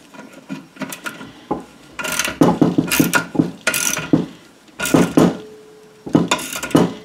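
Socket ratchet clicking in about five short bursts, one for each back-swing, as a bolt is tightened on a scooter exhaust's end silencer.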